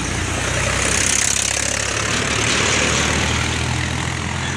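Motor vehicle engine idling with a steady low hum, while a broad hiss swells and fades about one to three seconds in.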